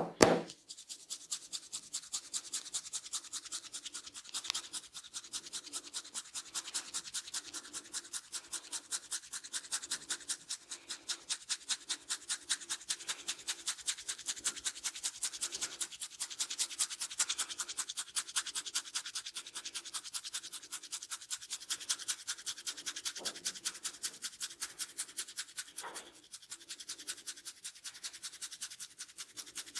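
Fingers scratching and rubbing rapidly through hair on the scalp during a head massage, in a rapid, even rhythm of short scratchy strokes. A sharp click sounds right at the start.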